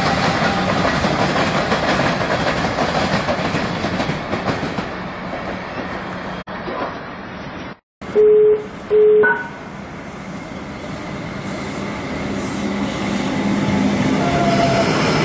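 Comeng electric suburban trains: one running steadily past, then another approaching sounds two short, loud horn blasts about a second apart and runs in alongside the platform, its rumble growing toward the end.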